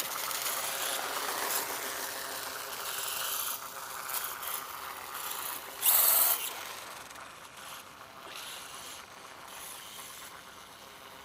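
ZD Racing Phantom 400 brushless RC dirt bike driving over dirt, its drivetrain and tyres making a mechanical rattle and hiss. There is a brief louder rush of noise about six seconds in, and the sound grows fainter in the later part.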